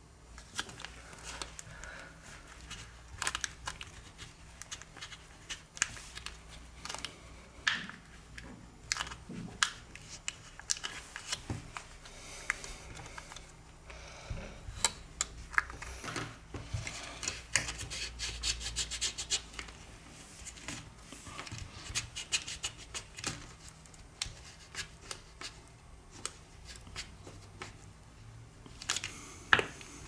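Playing cards being slid and worked between a Samsung Galaxy S7 edge's metal frame and its glass panel: scratchy scraping and frequent small clicks of card and fingers against the phone. There is a longer run of steady scraping about two thirds of the way through.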